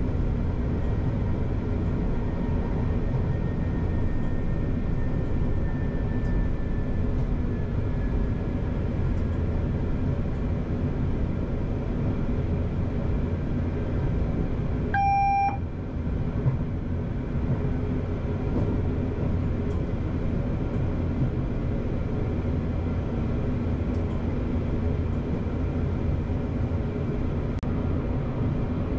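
Class 331 electric multiple unit heard from the driving cab while running: a steady low rumble of running noise, with a faint whine falling in pitch over the first several seconds. About halfway through a single short electronic beep sounds in the cab.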